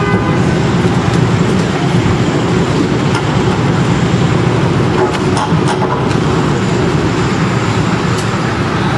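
Steady street traffic noise, a continuous low rumble of passing vehicles, with a few short sharp clicks about five to six seconds in.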